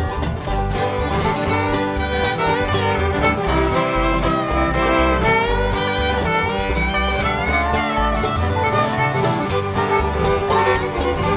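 Bluegrass band playing an instrumental break live, a fiddle carrying sustained, wavering lead lines over banjo and guitar with a steady pulse of bass notes.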